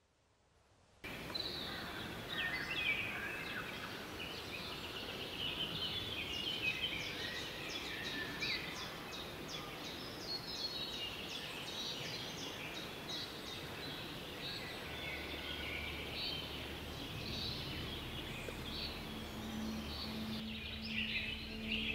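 Many birds chirping and calling in a forest, with a quick run of sharp chips a few seconds in. Near the end a soft music track with long held tones fades in under the birds.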